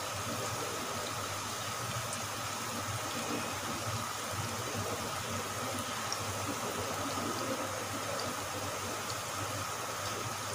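Sliced onions frying in oil in a wok, a steady sizzle with a few faint crackles. The onions have gone translucent but are not yet browning.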